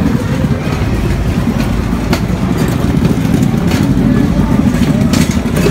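Loud, steady low rumble on a handheld camera's microphone, carried along while walking, over the general noise of a busy pedestrian street, with a couple of short clicks.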